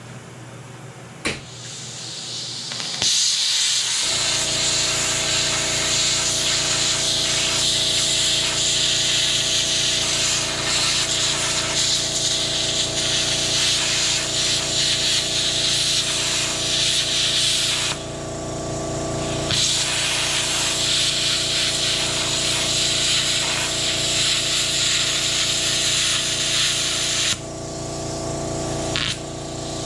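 Wire-feed (MIG) welder running a bead on steel plate: a steady sizzling hiss over the welder's hum. It starts a few seconds in and breaks off briefly twice.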